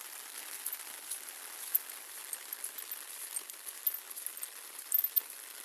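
Steady rain falling, an even hiss with scattered sharp drip ticks, a few louder near the end.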